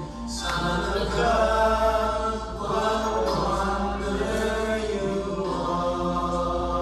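A group of men singing together, holding long sustained notes.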